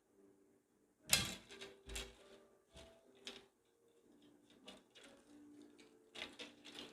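Clicks and knocks of Tesla Model 3 steering column parts being pried and taken apart by hand. The sharpest knock comes about a second in, with scattered clicks after it and a quick cluster near the end.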